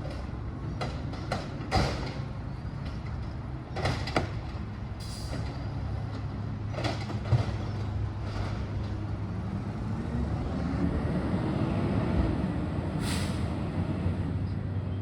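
Recycling truck's diesel engine running steadily, with a series of sharp metallic clanks and knocks in the first half. Later the engine revs up and back down.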